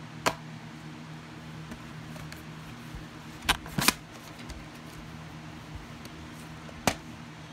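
Handling noise of a plastic VHS cassette and its cardboard sleeve: a few short sharp clicks and knocks, one about a second in, a single then a quick pair midway, and one near the end, over a steady low hum.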